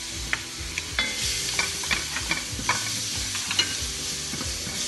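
Minced garlic sizzling in hot oil in a stainless steel wok while a spatula stirs it, clicking and scraping against the metal pan many times.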